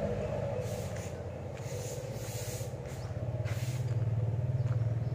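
An engine running steadily with a low pulsing hum, growing louder about three seconds in.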